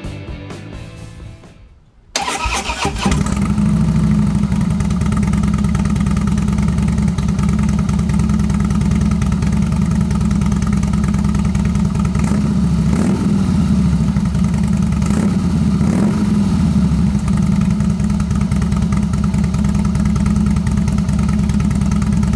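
A 2013 Harley-Davidson Fatboy Lo's V-twin starts about two seconds in, then idles with a deep, steady rumble through a Rinehart 2-into-1 exhaust, rising briefly in pitch a few times around the middle.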